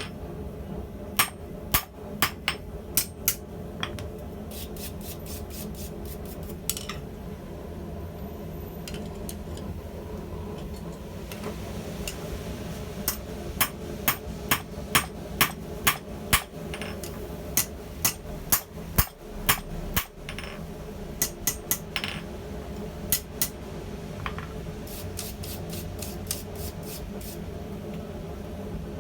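Hand hammer striking hot steel tong blanks on an anvil, in runs of sharp ringing blows with pauses between them, over a steady low hum.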